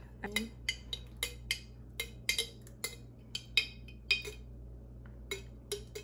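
Metal spoon clinking and scraping against the inside of a glass jar of pasta sauce as sauce is scooped out: a string of sharp, irregular clinks, a few a second.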